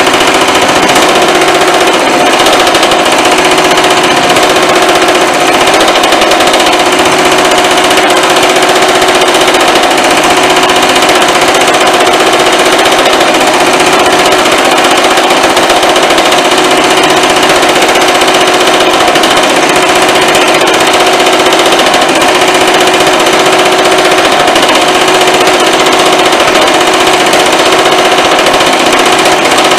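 Baileigh MH-19 power hammer running with thumbnail shrinking dies, pounding rapidly and without a break on a steel panel as the panel is fed through to form shrinking tucks. The hammering is loud, with a steady metallic ring over the fast blows.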